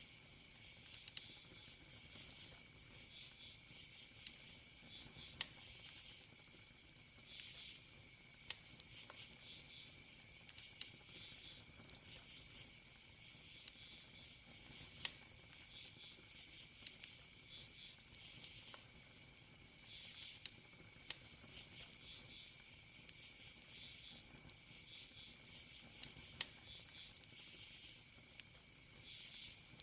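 Campfire of burning wood crackling with sharp, irregular pops, over crickets chirping in repeating pulses and a steady high insect trill.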